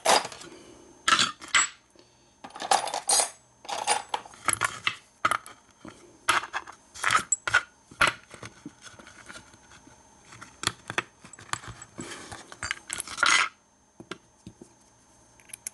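An American 1100 padlock being worked by hand with its key: a run of irregular metallic clicks, clinks and short scrapes, quieter near the end.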